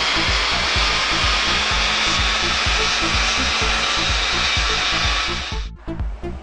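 BMW 330d (E46) straight-six turbodiesel running on a chassis dynamometer: a loud, steady rush of engine, tyres on the rollers and cooling-fan noise that cuts off abruptly near the end. Background music with a steady beat plays underneath.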